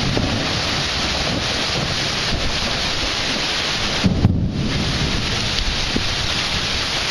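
Heavy thunderstorm rain hissing steadily, with a low rumble of thunder underneath. About four seconds in, a brief low thump.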